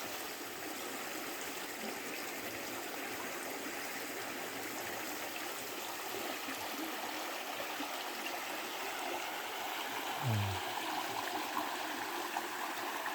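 A creek's water running steadily over its rocky bed, a continuous, even rushing and trickling.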